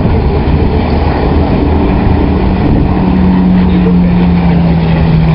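Hawker Hurricane's Rolls-Royce Merlin V12 engine running loud as the fighter flies past; a strong drone note rises out of the noise about three seconds in and then begins to fall slowly in pitch.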